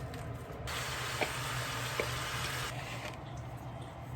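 Kitchen tap turned on and running for about two seconds, then shut off, over a low steady hum.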